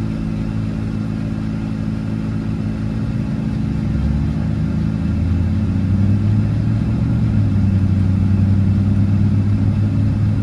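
Vehicle engine and road noise heard from inside the cabin while driving: a steady low hum that grows a little louder about five seconds in.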